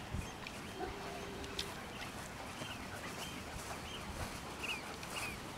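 Short high animal chirps, about two a second from a third of the way in, over a steady outdoor background hiss, with a brief held tone about a second in.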